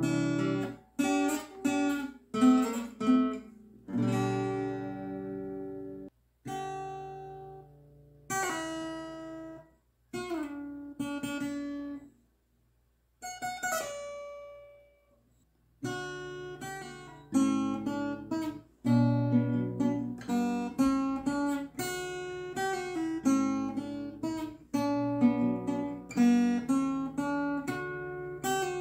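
Acoustic guitar played by hand: chords struck and left to ring and fade, with a brief pause about twelve seconds in, then a steady rhythmic run of chords through the second half.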